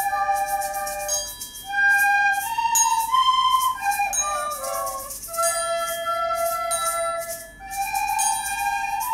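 A school ensemble of plastic descant recorders playing a tune in parts, with held notes moving from one to the next. A light, regular percussion beat runs behind it.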